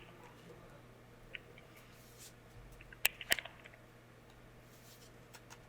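Trading cards being handled and flipped through, with a few soft ticks and two sharp clicks a little after three seconds in, over a faint steady hum.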